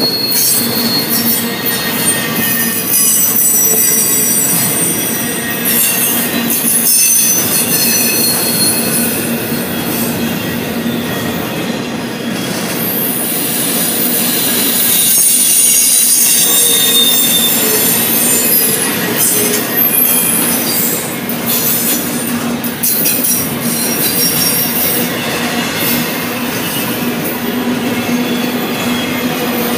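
Double-stack intermodal freight train passing close by: steel wheels rolling and clicking on the rails under the loaded well cars, with a steady high-pitched wheel squeal running throughout.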